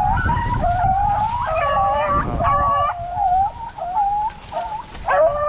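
Several rabbit-hunting dogs baying together in long, wavering, overlapping cries as they run a rabbit on its trail.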